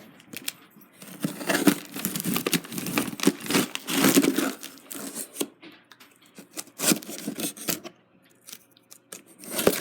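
Cardboard shipping box being torn open by hand, with packing tape ripping and cardboard flaps scraping and crinkling, in a dense run of rasps followed by scattered sharper rips and clicks.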